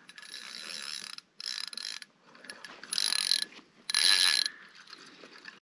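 Drag of a spinning reel buzzing as a hooked lake trout pulls line off it, in four separate runs of about half a second to a second each.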